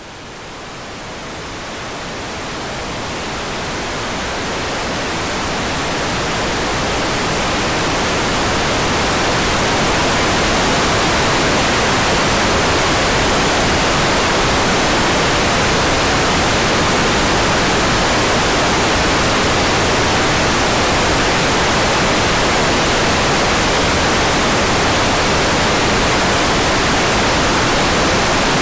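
Hairdryer running: an even, steady hiss of blown air with no distinct motor pitch. It grows gradually louder over the first ten seconds or so, then holds level.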